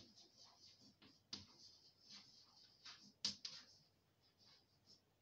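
Chalk writing on a blackboard: faint scratching strokes with two sharper taps of the chalk, about a second and a half in and a little after three seconds.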